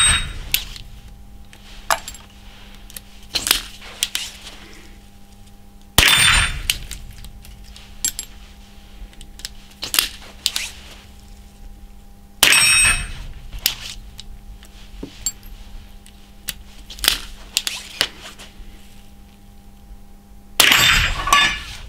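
Chiappa Little Badger single-shot .22 LR rifle fired four times, about six to eight seconds apart, at steel gongs that ring out metallically on the hits. Lighter clicks and clinks come between the shots as the break action is opened and reloaded.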